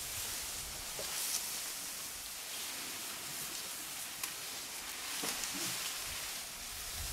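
African elephants feeding in tall grass close by: soft rustling of grass, with a few faint snaps or tears, over a steady outdoor hiss.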